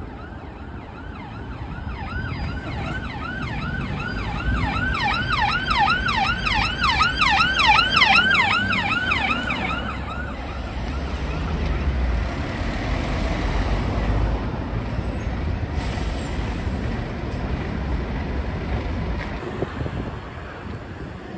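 Emergency vehicle siren on a fast yelp, about three rising-and-falling sweeps a second, growing louder as the vehicle approaches and passes. The siren cuts off about ten seconds in, leaving engine and road noise.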